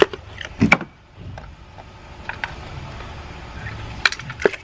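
Hard plastic and metal parts being handled on top of an engine: about five sharp clicks and knocks, the loudest near the start and just under a second in, over a low steady hum.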